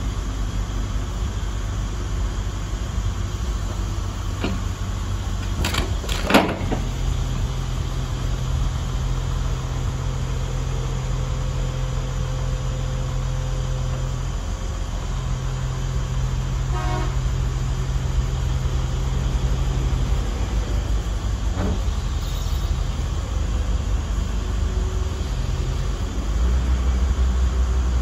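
Komatsu PC210-6 demolition excavator's diesel engine running as the hydraulics lift the long boom and crusher attachment, with a steadier hum under load in two long stretches. There is a sharp knock about six seconds in, and the engine gets louder near the end.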